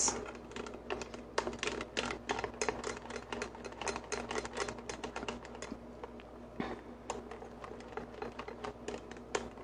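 A utensil stirring thickening pudding in a stainless steel saucepan, clicking and scraping against the sides and bottom of the pan in quick, irregular taps, several a second.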